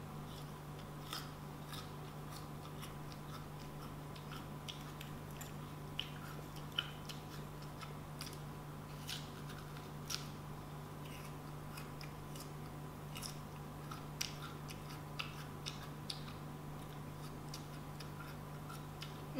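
A person biting and chewing juicy fresh fruit close to the microphone: scattered small wet clicks and mouth sounds, with a steady low hum underneath.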